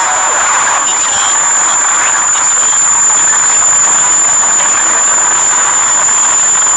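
Loud, dense, noisy jumble of many overlapping video soundtracks, with a steady high-pitched whine over it.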